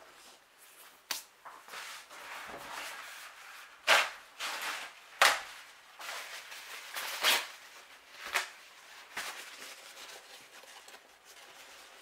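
Handling noises: rustling with about half a dozen sharp clicks and knocks, the loudest about four and five seconds in.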